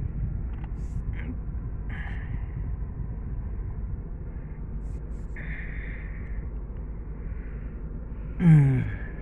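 Steady low rumble inside a parked car's cabin, its engine idling. About eight and a half seconds in, a man gives a short voiced sigh that falls in pitch, the loudest sound.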